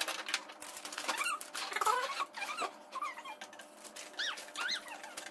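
Hard plastic parts of an Enchantimals panda playhouse clicking and knocking as they are forced together, with several short high squeaks that rise and fall in pitch. The joints are stiff and need firm pressing to seat.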